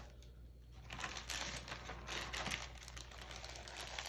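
Plastic packaging crinkling as board game components are handled, starting about a second in.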